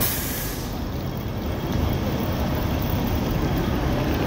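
Busy street traffic: vehicles running past, with a bus nearby, a steady low rumble and a brief hiss at the very start.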